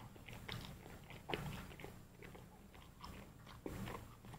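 A person chewing food close to the microphone, with faint wet mouth clicks and soft crunches every second or so.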